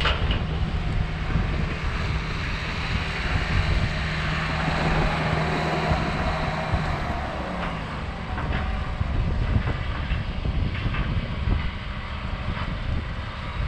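Tracked excavator's diesel engine running, its low steady note falling away about halfway through, under heavy wind noise on the microphone.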